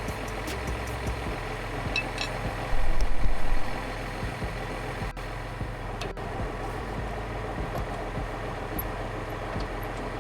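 Kubota tractor engine idling steadily, with a few sharp metallic clicks and a brief louder low rumble about three seconds in.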